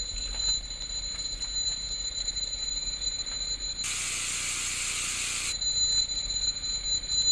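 Eerie high-pitched drone of a horror-film videotape soundtrack, two steady piercing tones held together. About four seconds in, a burst of TV static hiss replaces it for under two seconds, then the drone returns.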